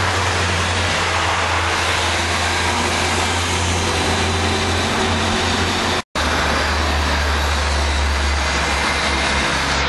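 Car engine running steadily at speed with loud road and wind noise, heard from inside the cabin. The sound drops out for an instant about six seconds in.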